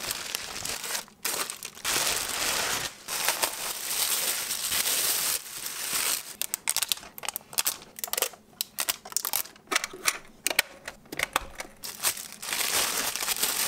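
Thin plastic bags crinkling and rustling as they are pulled off and handled. Continuous at first, then breaking into separate irregular crackles, and thicker again near the end.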